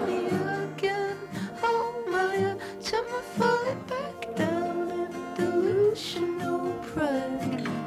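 Music: a song with plucked acoustic guitar and a sung melody, in a quieter passage.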